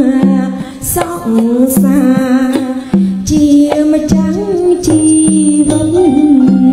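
Khmer traditional wedding song: singing and melody over a steady drum pattern that alternates low and higher strokes, with a few sharp strikes of small hand cymbals.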